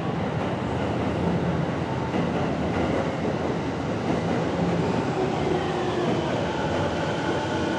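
A train running, a steady rumble and rattle that comes in suddenly, with a faint tone slowly falling in pitch near the end.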